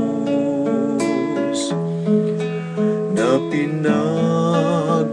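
Music: strummed acoustic guitar accompanying a slow Tagalog devotional song, with a melody line that wavers in pitch over it.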